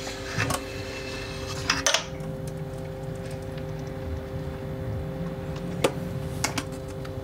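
Metal mesh strainer basket lifted out of a stainless steel pot, with a few sharp clinks as the basket and the loose celadon shards in it knock against the metal: two in the first two seconds and two near the end. The shards come from a vase that has come apart at its old lacquer joins.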